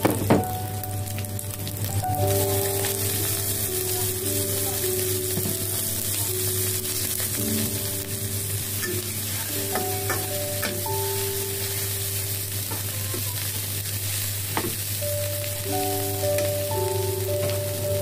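Stir-fry in a stainless-steel wok: oil sizzling steadily around frying shallots, garlic and cassava leaves, with a metal spatula scraping and clicking against the pan now and then. Soft background music with long held notes plays underneath.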